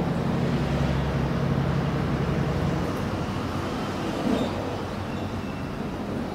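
Low, steady engine drone with a hum that is strongest for the first few seconds, then fades into a rougher rumble over outdoor noise.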